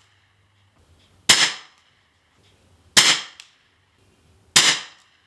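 Three shots from a .177 Gamo Hunter 440 AS break-barrel spring-piston air rifle, about a second and a half apart. Each is a sharp crack with a short ring after it.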